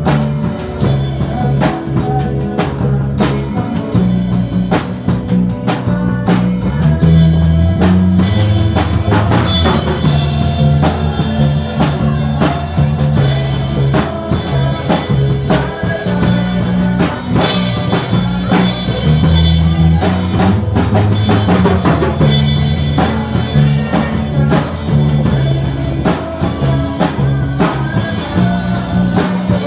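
Live band playing a song: a drum kit keeps a steady beat under electric guitar, with a strong bass line moving between notes.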